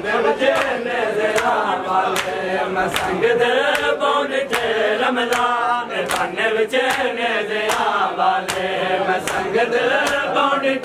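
Men chanting a noha, with sharp rhythmic strikes of matam (hands beating bare chests) keeping time, about two strikes a second.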